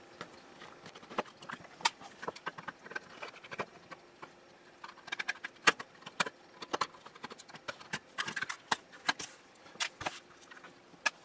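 Irregular small clicks and taps of a screwdriver working screws out of a plastic thermometer receiver case, with the plastic case and screws knocking on the bench. The clicks come thickest in the second half.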